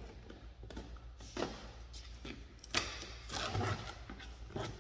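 A cardboard box being handled and opened by hand: scattered knocks and rustles of cardboard and packaging, with a sharp knock a little past halfway and a longer rustle just after it.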